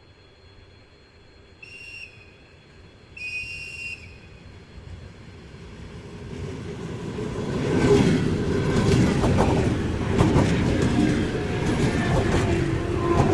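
A train sounds two high-pitched whistle blasts, a short one and then a longer one. A few seconds later the train itself comes in, its rumble and wheel clatter growing loud and staying loud as it runs past the platform.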